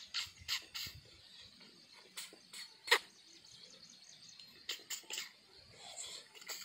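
Close-up eating sounds of a person chewing a mouthful of rice and fish: a scattered string of short, wet mouth clicks and lip smacks, the loudest about three seconds in. A faint high hiss of insects and birds runs underneath.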